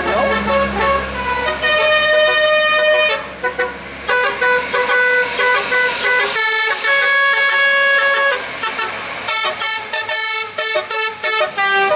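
Telolet basuri multi-tone musical horn playing a melody. Several horn tones sound together and step from note to note, pausing briefly about a third of the way in. Near the end it plays a run of quick, short staccato notes.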